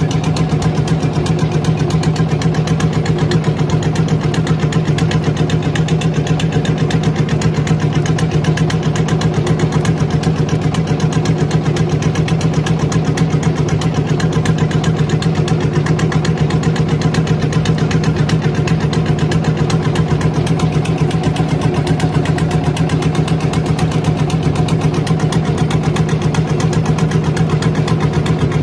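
Small fishing boat's engine running steadily at constant speed: a low hum with a fast, even beat that does not change.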